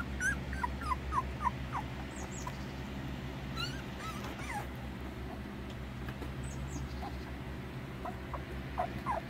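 Young puppies, their eyes just opening, whimpering in short high squeaks: a quick run of about six in the first two seconds, a few scattered through the middle, and another cluster near the end. A low steady hum runs underneath.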